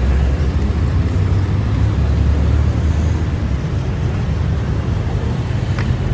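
A moving road vehicle's low, steady rumble, with road or wind noise over it.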